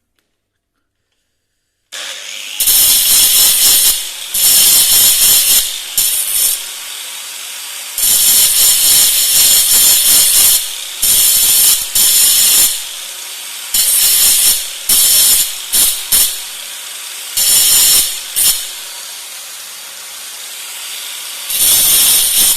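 A power tool cutting metal: after about two seconds of silence it starts, then bites in again and again in loud harsh bursts of one to two seconds, running quieter between them.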